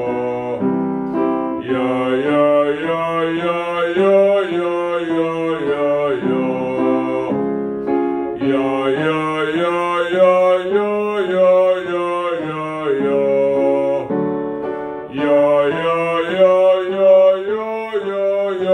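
A man singing a classical-style vocal scale exercise over piano accompaniment, the notes stepping up and down in three phrases with short breaks between them.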